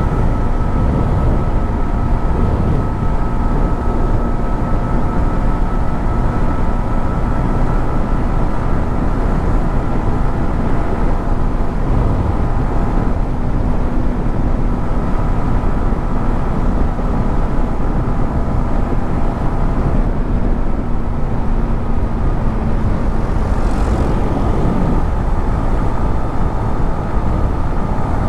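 Yamaha MT-15's single-cylinder engine and exhaust running steadily while riding, its pitch shifting a couple of times as the revs change, with a brief high hiss about three-quarters of the way through.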